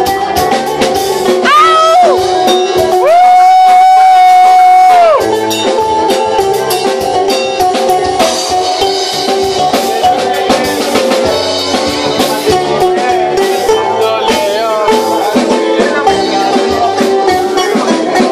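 A man singing a Greek song live into a microphone over instrumental accompaniment with drums and guitar. He holds one long note for about two seconds, starting about three seconds in.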